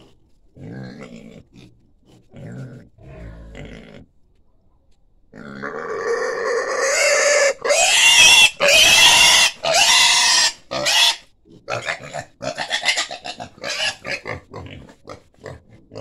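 A pig grunting in short low bursts, then squealing loudly from about five seconds in for several seconds as it is held and rubbed, before breaking into short squeals and grunts near the end.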